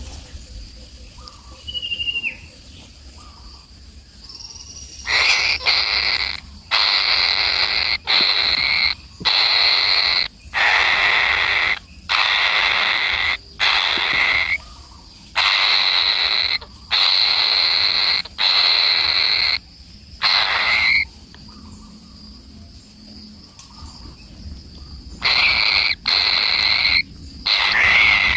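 Loud, harsh animal calls repeated in bursts of about a second with short gaps between them, stopping for a few seconds and then starting again near the end.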